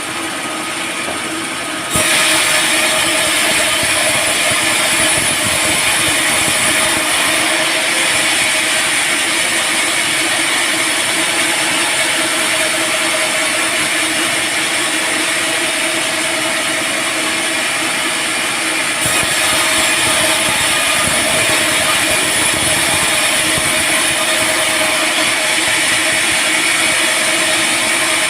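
Sawmill band saw running steadily as it saws a teak log, a loud continuous hiss with a steady whine under it. The level steps up suddenly about two seconds in and again about two-thirds of the way through.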